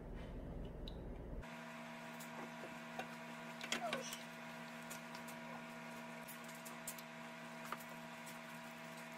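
Silicone spatula stirring sauce in a frying pan, with scattered light clicks and scrapes against the pan, busiest about four seconds in. Underneath, a steady machine hum with several pitched tones starts abruptly about a second and a half in.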